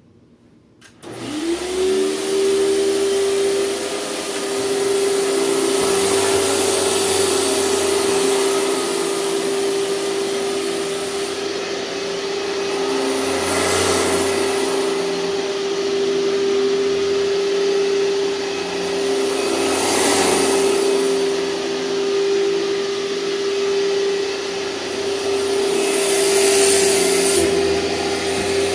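A 2003 Hoover TurboPower 5000 canister vacuum switches on about a second in, its motor winding up in pitch to a steady whine, then runs with a rush of air that swells three times.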